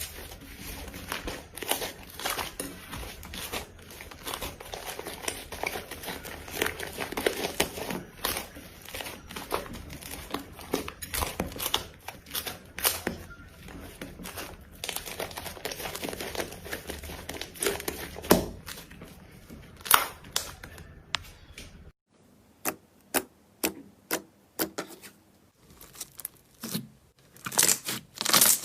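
Slime being worked by hand, giving a dense run of crackles and small sticky pops. About 22 seconds in the background hiss drops away and the pops come sparser and more separate.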